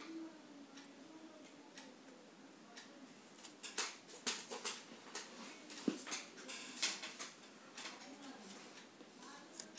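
A metal dissecting needle tapping and scraping on a glass microscope slide, in irregular small clicks and scratches that come thicker after a few seconds.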